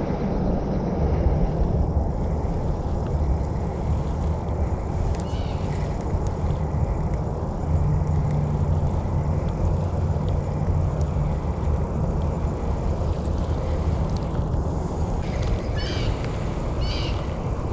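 Steady low outdoor rumble, with a few short bird chirps about a third of the way in and again near the end.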